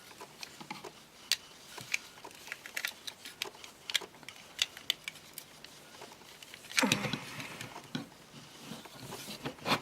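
Scattered light clicks and taps of a plastic Transformers action figure being handled, its tabbed parts popping loose and being pressed back, with a louder scuffle of plastic about seven seconds in.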